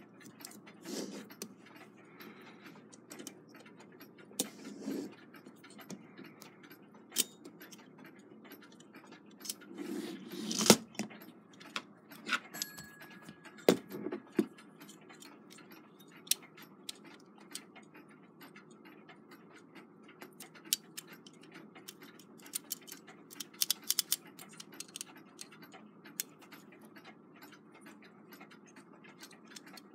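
Brass clock movement being handled and fitted together: light metallic clicks and taps of plates and wheel pivots, with the loudest knock about eleven seconds in. From about fifteen seconds on, a steady run of quick, even ticking.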